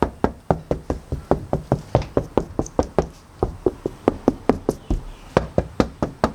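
Rapid, even knocking on a freshly sound-deadened car door, about five knocks a second, testing how well the deadening damps the panel.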